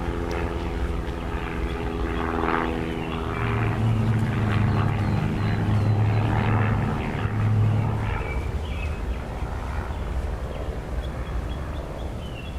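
A steady engine drone with a pitched hum that fades over the first several seconds, with short high chirps now and then.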